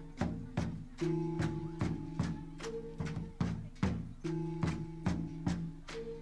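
Bamboo-pole dance music: bamboo poles clacked together in a steady beat, a little over twice a second, under long held notes from a wind instrument.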